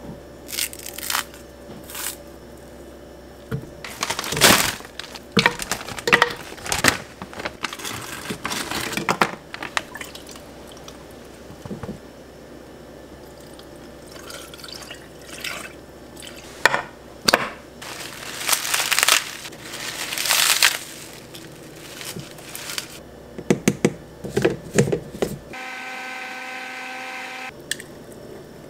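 A string of kitchen sounds as a smoothie is made: knocks and clatters on the counter, and ingredients tipped and poured into a blender jar. Near the end, about two seconds of a blender's motor whine.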